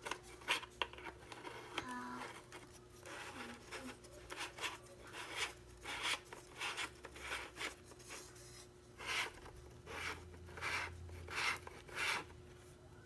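A wide-angle lens attachment being screwed by hand onto a camcorder's lens: a series of short scraping rubs, a few a second, as it is turned on its threads.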